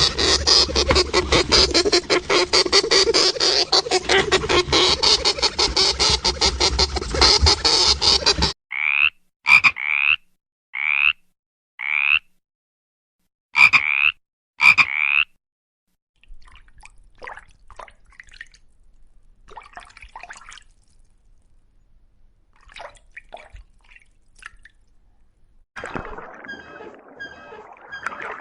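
Frogs croaking: a dense, rapid pulsing croak for about eight seconds, then a run of six separate short calls. Faint scattered clicks follow, and a different noisy sound starts near the end.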